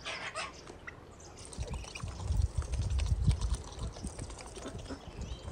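Hens and Muscovy ducks pecking scattered grain off a stone step: rapid, irregular beak taps with low dull thuds.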